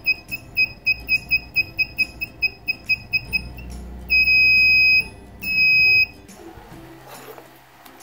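Small buzzer in a BC547 transistor infrared detector circuit beeping at a high pitch, set off by infrared light from an IR LED powered by a coin cell. Quick beeps about four a second, then two longer beeps of about a second and half a second, stopping about six seconds in.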